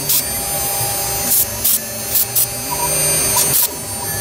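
STYLECNC STM1325-R1 CNC router spindle running at a steady whine while its ball-nose bit cuts through EVA foam, with short bursts of hiss scattered through it.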